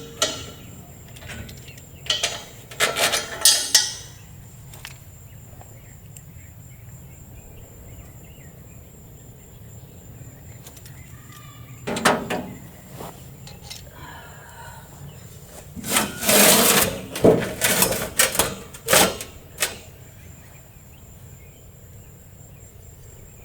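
Intermittent metal clanking and scraping as a camper's propane tank and its wing-nut mount are worked loose by hand with vice grips. The noise comes in a few short clusters with quiet stretches between, the busiest run about sixteen to nineteen seconds in.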